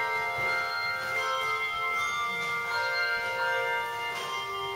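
Bells ringing, with many overlapping tones that come in one after another and ring on.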